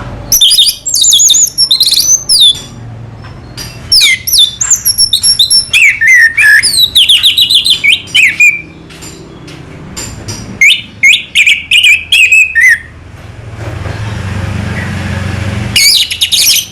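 Orange-headed thrush singing in four bursts of rapid, varied whistles and trills, with short pauses between them.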